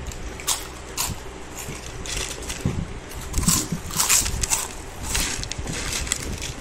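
Potato chips crunching as several people chew them quickly, in irregular crisp crackles that bunch together about three and a half to four and a half seconds in.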